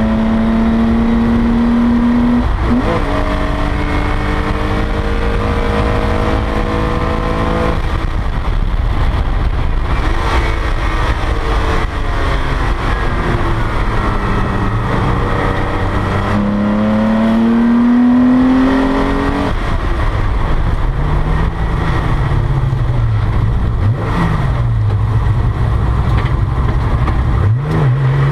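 1986 Porsche 911 race car's air-cooled flat-six under hard acceleration, heard inside the cabin over road and wind noise. The engine note climbs, drops sharply with an upshift about two and a half seconds in, and keeps climbing until the driver comes off the throttle around eight seconds in. It climbs again mid-way, then falls, with quick dips and rises near the end.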